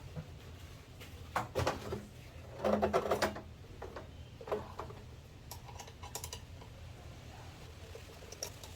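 Scattered small clicks and clattering of metal hose clamps and a screwdriver being worked as the clamps are taken off a rubber air intake hose, with a louder cluster of clatter about three seconds in.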